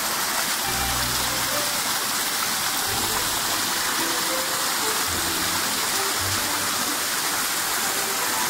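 Rain-swollen waterfall rushing over rocks: a steady, dense hiss of falling water.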